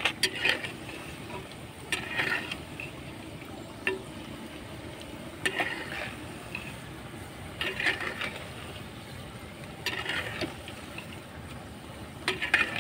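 Spinach pakoras frying in hot oil in a clay karahi, a steady sizzle, with a metal slotted spoon stirring and turning them in the pot in short scrapes every two seconds or so.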